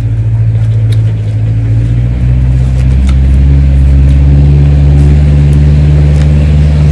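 An engine running steadily close by, its low hum stepping up slightly in speed about two to three seconds in and then holding, with a few faint clicks over it.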